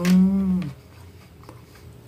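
A woman's closed-mouth "hmm", held for about a second at a low, steady pitch that dips at the end. A few faint cutlery clicks follow.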